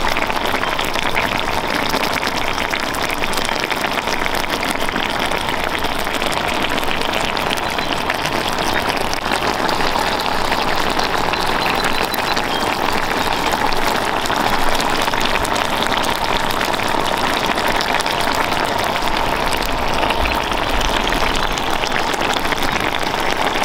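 Coconut-milk sauce simmering hard in a pan of steamed fish with mussels and clams: a steady, dense bubbling and sizzling.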